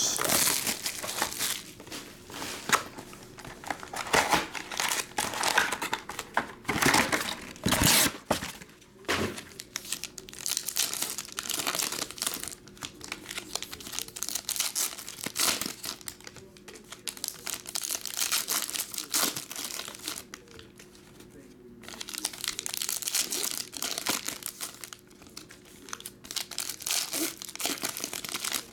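Foil Panini Chronicles Draft Picks card packs being crinkled and torn open by hand, in irregular bursts of crackling with a short lull about two-thirds of the way through.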